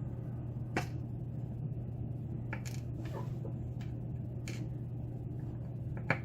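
A few sparse, sharp clicks of small metal parts as lock pins are worked out of a pin-tumbler lock core, over a steady low hum.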